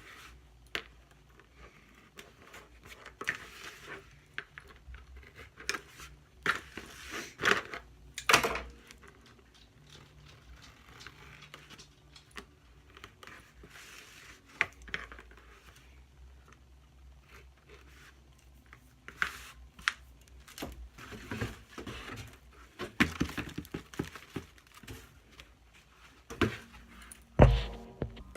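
Intermittent hand-work noises: crinkling, scraping and light clicks of fly screen and tools being handled, with a sharp knock near the end.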